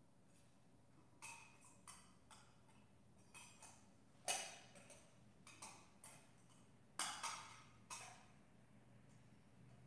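A dozen or so light, sharp knocks and clicks at uneven spacing, two louder ones about four and seven seconds in, over a near-silent room.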